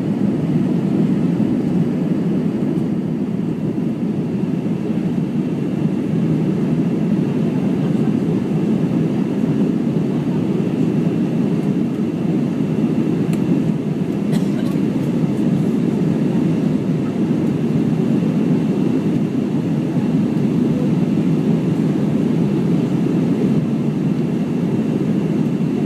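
Steady cabin noise inside an Airbus A319 airliner in flight: the even rumble of engines and airflow over the fuselage, with a faint steady high whine.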